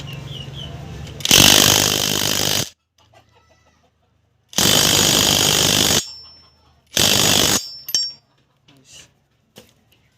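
Impact wrench hammering in three bursts: a long one about a second in, another of about a second and a half near the middle, and a short one a little later.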